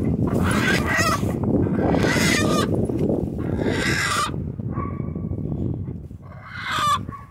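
A hen squawking repeatedly, about five short harsh calls a second or so apart, while a boxer dog sniffs at her. A low rumbling noise runs under the first few calls.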